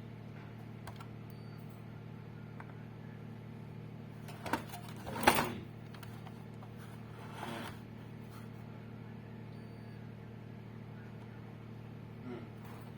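Steady low electrical hum with a few sharp snaps at irregular spacing: two close together about four and a half seconds in, the second the loudest, then a weaker one a couple of seconds later and a faint one near the end.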